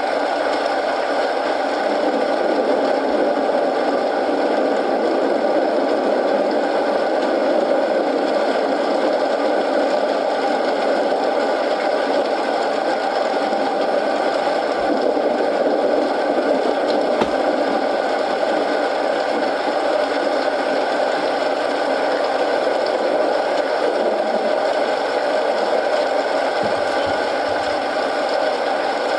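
Steady rain falling together with a crackling wood fire, a few faint pops standing out now and then.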